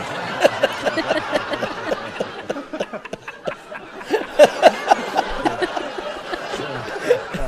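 Laughter from a TV studio audience and panel, with a man laughing close to the microphone. It is loudest around four to five seconds in.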